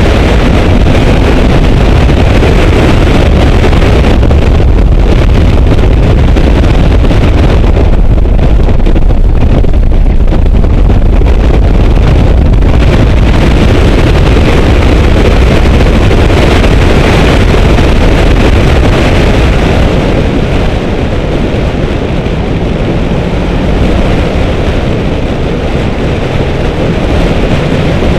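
Car driven at speed on a racetrack, heard through a camera mounted outside the car: heavy wind buffeting on the microphone over engine and road noise, easing slightly about two-thirds of the way in.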